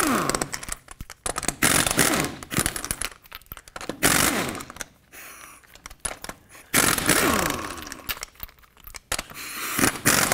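Impact wrench with a 21 mm socket spinning off wheel lug nuts in a run of short bursts about every two seconds, the motor's pitch falling each time the trigger is let go.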